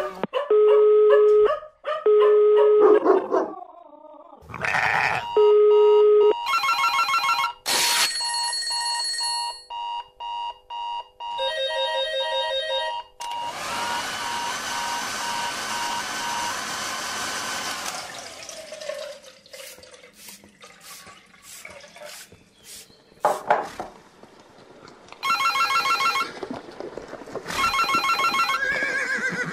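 A collage of sound effects cut one after another: repeated electronic beeps and pulsed ringing tones like an alarm clock and a telephone, a bell-like ding, and a few seconds of rushing noise near the middle. The ringing tones come back near the end.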